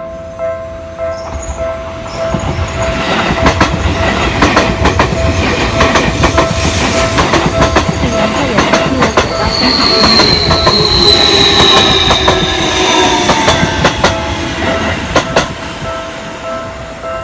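Seibu Railway level-crossing warning bell ringing in steady repeated dings, about two a second. A train passes over the crossing, wheels clacking over the rail joints, with a high whine that slides down in pitch in the middle of the pass.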